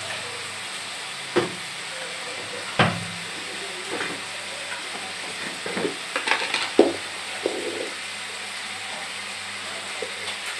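Onions, tomatoes and green chillies frying in oil in an aluminium karahi, a steady sizzle. A few short, sharp knocks from the metal slotted spoon against the pan break through it.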